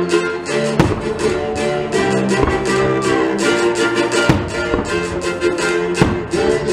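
Music playing over a fireworks display, with firework shells bursting sharply about one, four and six seconds in.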